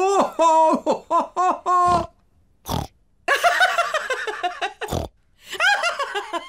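Cartoon pig voices: a quick run of short pitched syllables, then laughter broken by two short pig snorts, about three and five seconds in.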